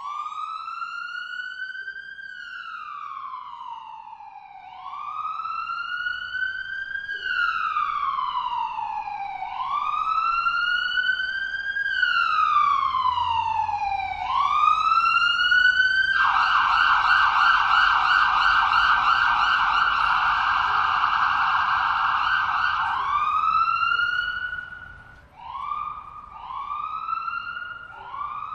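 Ambulance siren: a slow wail rising and falling about every five seconds, growing louder over the first dozen seconds. About sixteen seconds in it switches to a fast yelp for several seconds, then goes back to a wail and a run of short rising whoops near the end.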